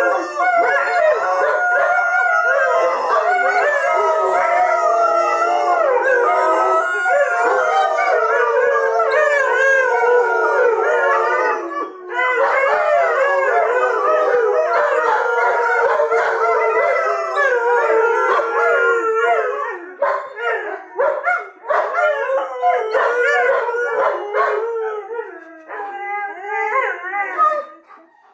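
Several borzoi howling together in chorus, many overlapping voices gliding up and down in pitch. The chorus dips briefly about twelve seconds in, then breaks into shorter calls and trails off near the end.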